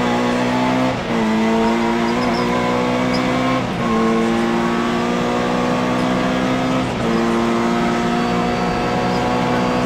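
Rally car's engine heard from inside the cockpit, running steadily at high revs along the stage. Its note dips briefly three times, about one, three and a half and seven seconds in.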